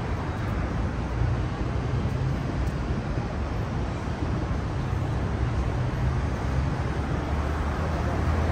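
Steady street traffic noise: passing vehicles' engines give a low hum under a hiss of tyres on the road. The hum grows a little louder near the end.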